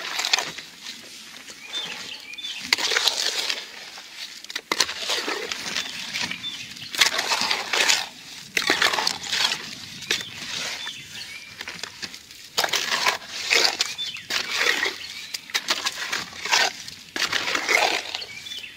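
Hoe scraping and churning wet quick-setting concrete mix in a plastic mixing tub, in repeated uneven strokes about once a second, working water into the dry mix.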